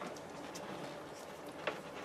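Faint handling noise from electrical wiring and cable connectors being sorted: a few light clicks, with one sharper click near the end.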